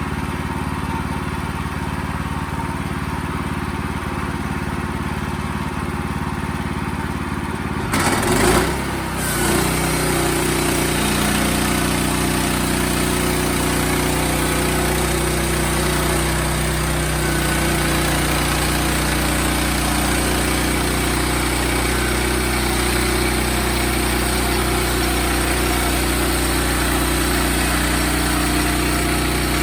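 Wood-Mizer portable band sawmill's engine running steadily. About eight seconds in there is a brief loud burst, after which the sound settles louder and fuller, with more hiss on top.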